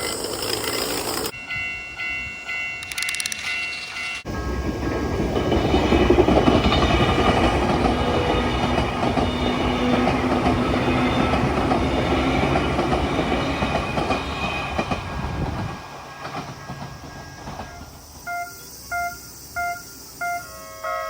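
Japanese level-crossing warning bell dinging about twice a second while an electric train runs through the crossing. The train's rail and wheel noise swells in about four seconds in, lasts roughly ten seconds and dies away, leaving the crossing bell dinging on its own near the end.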